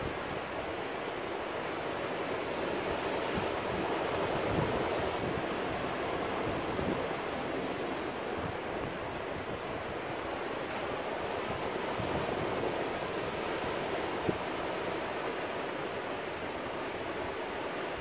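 Ocean surf breaking and washing over rocks: a steady rush that swells and eases.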